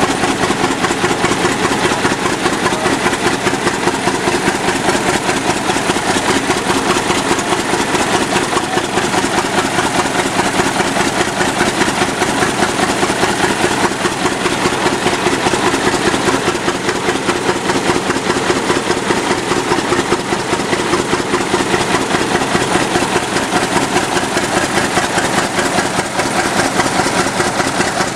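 1925 American LaFrance Type 75 pumper's engine running steadily while it drives the fire pump at draft, with a hose stream flowing. It is loud, with a fast, even beat of exhaust pulses.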